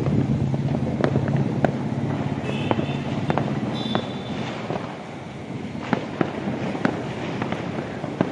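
Distant Diwali firecrackers and fireworks going off across the city: irregular sharp bangs and pops, some with a short whistle. A low steady rumble underneath fades out about halfway through.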